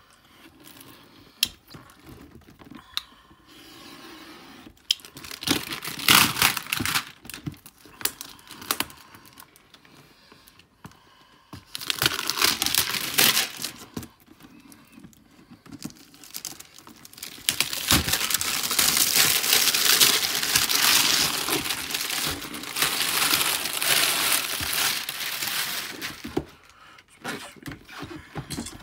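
Packaging on a boxed RC truck being cut and torn open, crinkling and tearing in several bursts. The longest stretch lasts about eight seconds in the second half.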